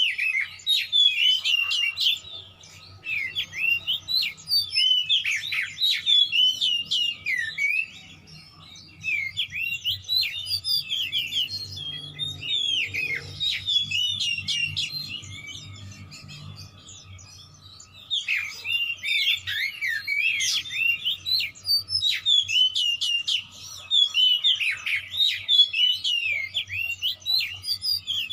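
Oriental magpie-robin singing hard, in long phrases of rapid, varied whistles and chirps with a short pause about two-thirds through. The song is packed with mimicked calls of other birds.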